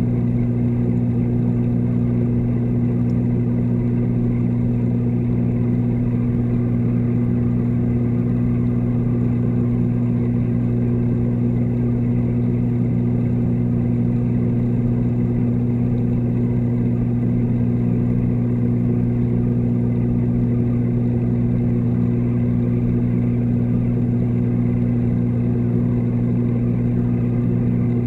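Steady mechanical hum of reef-tank water pumps heard underwater: a low drone with a second, higher tone above it and a faint rumble beneath.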